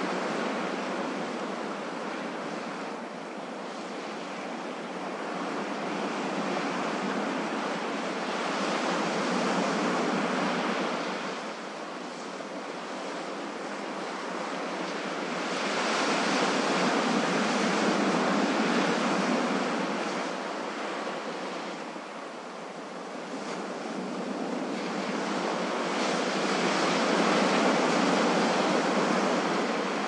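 Ocean surf washing onto a beach: a steady rush of waves that swells and eases three times, each surge building over several seconds before falling back.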